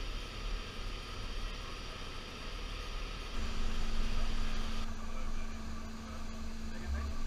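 Ship deck machinery running with wind noise on the microphone, as the CTD rosette is hoisted on its cable by the deck crane; a steady mechanical hum joins about three seconds in.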